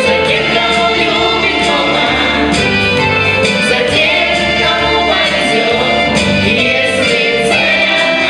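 A song: voices singing over an instrumental backing, loud and steady.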